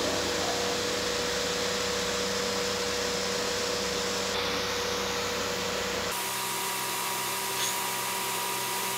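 Steady background hiss with a faint constant hum; the hiss changes character abruptly about six seconds in, its low rumble dropping away.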